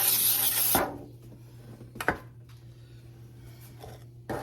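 Aerosol baking spray hissing from the can onto the baking pan, stopping under a second in. Then a sharp knock about two seconds in and another near the end.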